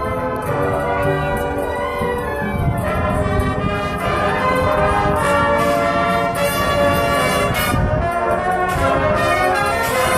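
High school marching band playing, with the brass section holding loud sustained chords over percussion hits.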